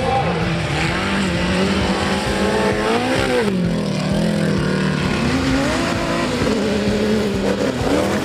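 Off-road competition jeep's engine revving hard, its pitch climbing and dropping as the throttle is worked, with a sharp rise and fall about three seconds in.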